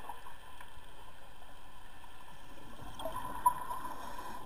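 Steady underwater rushing noise of a water-jet probe pipe being driven into seabed sediment, with one sharp knock about three and a half seconds in.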